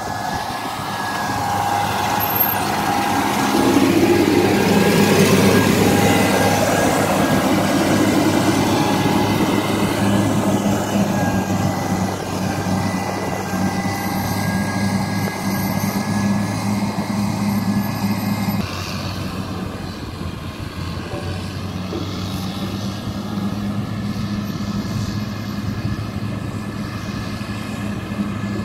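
Caterpillar 120K motor grader's diesel engine running steadily under load. It is loudest a few seconds in as the machine passes close, then quieter as it moves away down the road.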